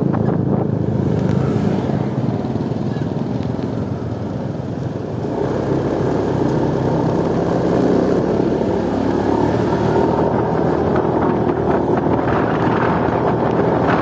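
Motorcycle engine running steadily while riding, with wind buffeting the microphone.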